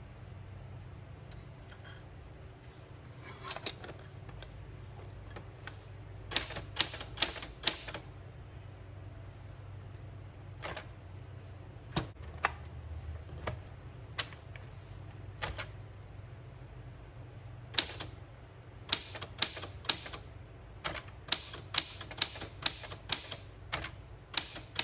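Smith Corona Super Sterling manual typewriter being typed on: sharp type-bar strikes in short runs with pauses between, single keystrokes through the middle and a faster run of strokes over the last several seconds.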